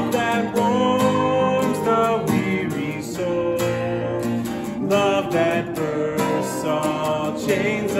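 Steel-string acoustic guitar strummed in a steady rhythm, accompanying a sung hymn melody with held notes.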